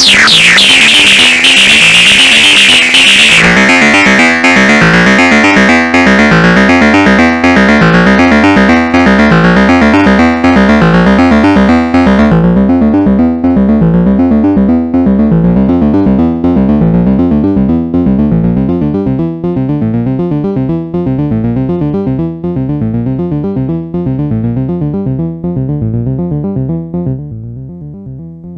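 Arturia MicroBrute analog synthesizer playing a fast, repeating sequenced chiptune-style pattern over a steady bass. About twelve seconds in the bright top end drops away as the filter closes, and the sound grows duller and quieter toward the end.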